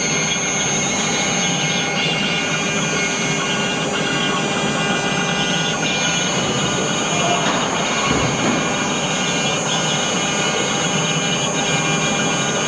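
Mini CNC router with a rotary axis running steadily while engraving an olive: a constant whine made of several steady tones over an even hiss, with no change in level.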